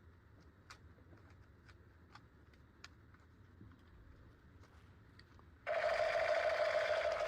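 Faint clicks of plastic toy parts being handled. About five and a half seconds in, a loud, steady electric buzz starts suddenly, coming from a battery-powered toy switched on.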